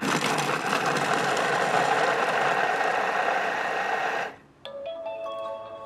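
Thermomix chopping raw potato pieces with its blade at speed 4.5: a loud, dense whirring rattle for about four seconds that cuts off abruptly. A short electronic chime of a few stepped tones follows, the signal that the set time is up.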